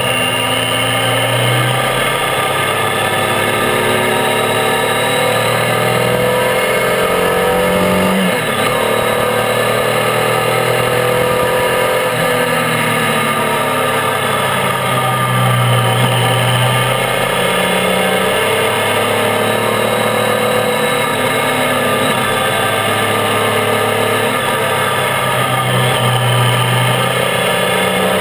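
Triumph Tiger 800's three-cylinder engine running under way, its pitch rising and falling as the bike accelerates and eases off through bends, with a brief dip in pitch about eight seconds in.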